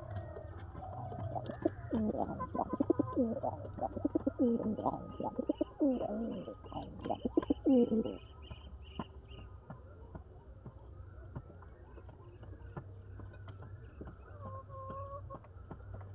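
Domestic pigeons cooing hard, a rapid run of rising and falling coos from a couple of seconds in until about halfway, over a quick series of small high chirps. After that it goes quieter, with only faint bird calls near the end.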